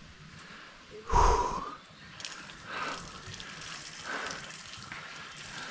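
A man breathing hard from climbing steep steps: heavy exhales in gusts about every second or so, with one loud puffing exhale about a second in.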